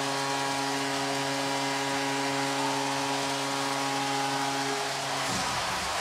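Arena goal horn sounding one steady held chord over a cheering crowd, for a home-team goal; the horn stops about five seconds in and the crowd noise carries on.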